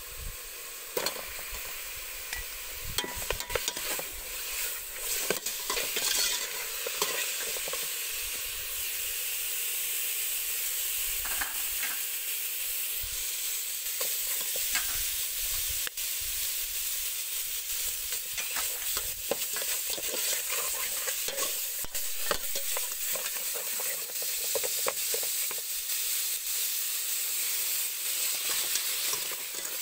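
Garlic and chicken pieces sizzling in a stainless steel pot, with a metal ladle scraping and clinking against the pot as it stirs them.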